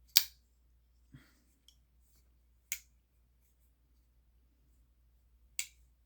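Tempest Knives liner-lock flipper folding knife being flicked open: short, sharp clicks as the blade snaps out and locks. The loudest comes right at the start, a softer click follows about a second later, then two more about three seconds apart.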